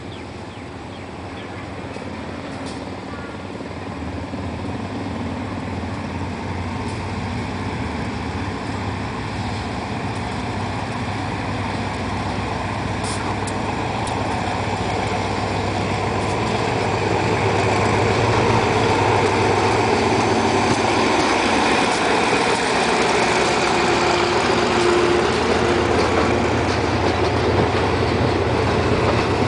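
GE diesel-electric locomotive GEA 4560 pulling a passenger train away from the station, its engine drone growing steadily louder over the first twenty seconds or so as it nears and passes. It then holds level as the coaches roll by.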